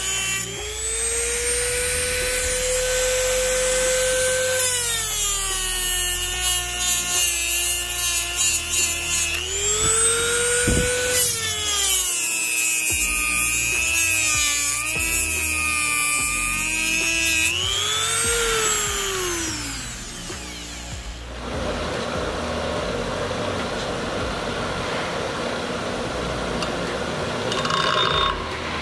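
Handheld rotary tool (Dremel) grinding the cast body of a C6 Corvette ZR1 brake caliper: a high motor whine that sags in pitch each time the bit bears into the metal and climbs back as it eases off. It stops about twenty seconds in, leaving a quieter steady noise.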